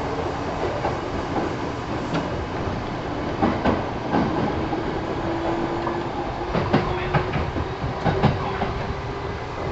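Kintetsu 1000 series electric train running, heard from inside the car: a steady rumble of wheels on rail, with wheel knocks in quick pairs over the rail joints, a few times. From about halfway in, a faint whine rises slowly in pitch as the train gathers speed.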